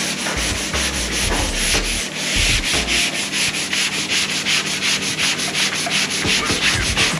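Sandpaper being worked over body filler on a car body panel, in quick, regular scraping strokes, several a second, to smooth the filled spots before paint.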